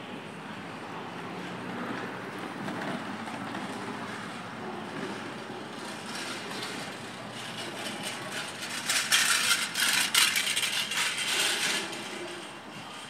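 Busy street background with a motor vehicle passing close by. It swells up from about six seconds in, is loudest around nine to eleven seconds, and fades away before the end.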